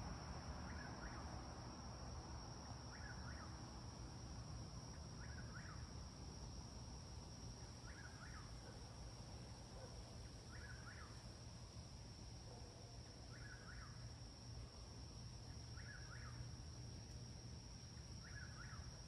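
A nightjar, the bird called a whippoorwill in the South, sings its short rolling phrase eight times, about once every two and a half seconds. Behind it is a steady high-pitched insect drone and a low rumble of distant traffic.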